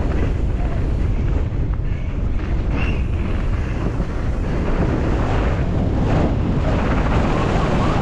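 Wind rushing hard over the camera microphone during a downhill mountain-bike run, with a constant low rumble and faint clatters from the bike on rough trail.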